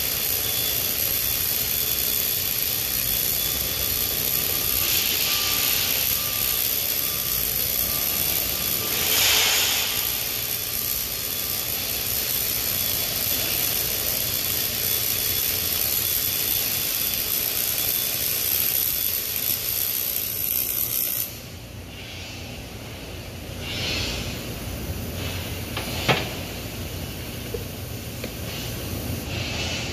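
Steady hiss of a short-circuit MIG welding arc (Miller RMD process) laying a bead on a 36-inch 316L stainless steel pipe. The arc cuts off about two-thirds of the way through, leaving quieter shop noise and one sharp click.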